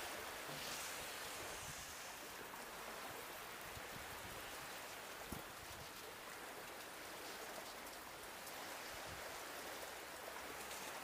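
Steady hiss of small waves washing on a sandy shore, mixed with wind, with a single faint knock about five seconds in.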